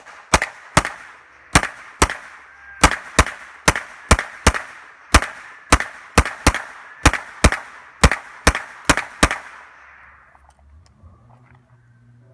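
AR-style semi-automatic rifle firing a string of about twenty shots at an uneven pace of roughly two a second, each shot trailed by a short echo. The firing stops about nine seconds in, followed by faint handling clicks.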